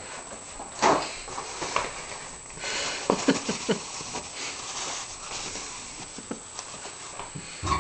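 Paper towel being rubbed over a vinyl kitchen floor: a rough swishing from about two and a half seconds in that lasts a few seconds, among scattered knocks and taps, the loudest about a second in.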